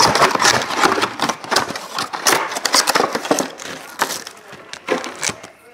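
Crackling and crinkling of a trading card box's packaging being handled and torn open: plastic wrap and cardboard, in quick sharp crackles that thin out near the end.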